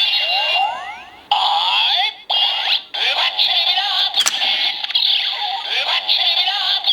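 Kamen Rider Ghost DX Ghost Driver toy belt playing its electronic sound effects and music for the Edison Ghost Eyecon, with synthetic voice-like warbles and rising electric zaps that imitate electric current. The sound breaks off briefly a few times in the first three seconds.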